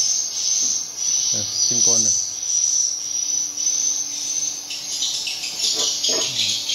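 Dense, continuous high-pitched twittering of swiftlets filling a swiftlet house. From about five seconds in it becomes busier, with sharper broken chirps close by.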